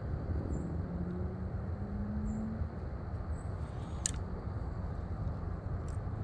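Steady, fluttering low rumble of wind buffeting the microphone, with a single sharp click about four seconds in, as the float rig is cast.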